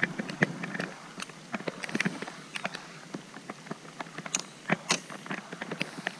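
Rain falling on open water: a steady patter with irregular sharp ticks of single drops landing close by.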